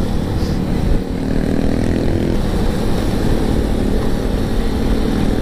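Motorcycle engine running at riding speed under heavy wind rush on the microphone, its note shifting a little a couple of times.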